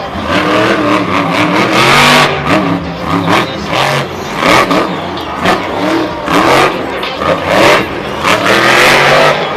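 Monster truck's supercharged V8 engine revving hard in repeated throttle surges, rising and falling as the truck accelerates and jumps.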